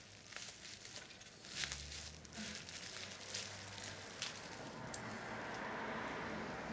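Small clicks and light scraping from hands and tools working on the plastic and metal parts of a cassette deck mechanism, with a steady hiss rising over the last couple of seconds.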